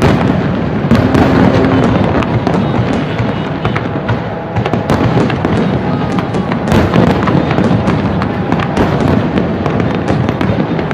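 Aerial fireworks shells bursting in quick succession: a continuous barrage of booms, bangs and crackling.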